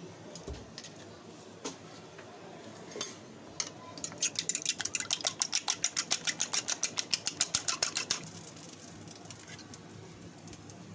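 An egg being beaten with a metal utensil in a small ceramic bowl: a quick, even run of clinks, about ten a second for some four seconds, after a few single taps.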